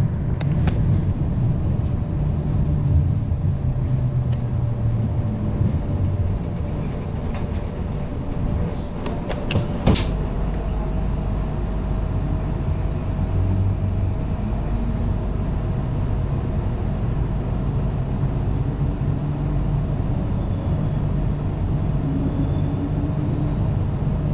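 Electric tram moving along its street track, heard from inside the car: a steady rumble of wheels on the rails. A sharp click about ten seconds in, after which a steady hum carries on.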